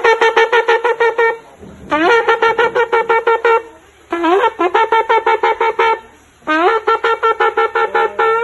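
Shofar blown in four bursts of rapid staccato notes, about seven a second, each burst opening with an upward scoop in pitch.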